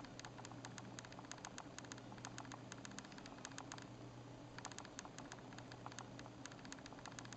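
Light, rapid, irregular clicks and ticks of fingertips and nails pressing and tapping along the edges of a PET screen-protector film on an iPad, in two runs with a short pause about four seconds in. A faint steady hum runs underneath.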